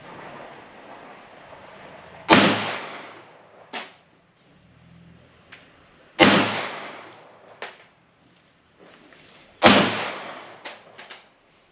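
Three pistol shots fired slowly, about three and a half seconds apart, each with a trailing echo, and a few fainter sharp cracks between them.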